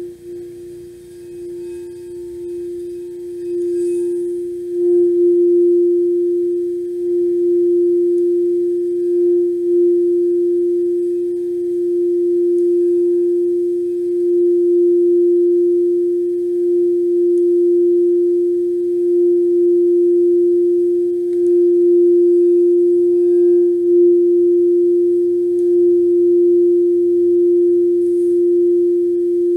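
Frosted quartz crystal singing bowl sung with a quartz crystal striker worked around inside it. It gives one steady pure tone that builds over the first few seconds, then holds with a slow, gentle pulsing. Near the end the striker is lifted out and the bowl rings on.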